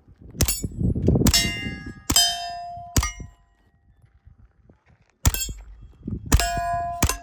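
A string of gunshots at steel plate targets, each hit ringing the plate with a clear tone. There are four shots in quick succession, a pause of about two seconds, then three more.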